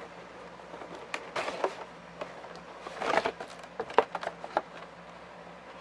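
Rustling crinkles and clicks of action-figure packaging, plastic and cardboard, being handled and opened, with the sharpest click about four seconds in. A faint steady hum runs underneath.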